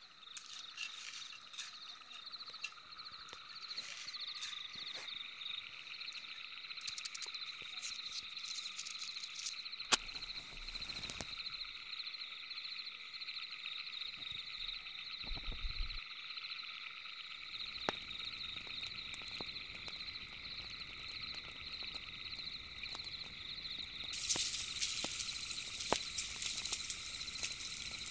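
Steady night-time chorus of calling animals, a fast pulsing trill in several pitches, with scattered small clicks. Near the end a hiss with crackling joins in as a wood fire in a metal pot flares up.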